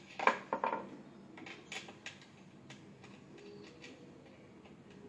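Hand tool working screws into a plastic chair frame during assembly: a burst of sharp clicks and knocks in the first second, then lighter scattered clicks.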